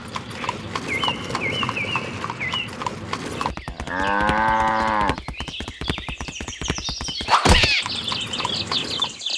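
Cow mooing once, a sound effect about four seconds in that lasts about a second, over a fast run of clicks and short bird chirps. A sudden loud sweeping crash-like effect comes near the end.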